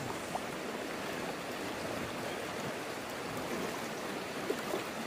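Steady rush of a river flowing over stones, with a faint small click or two.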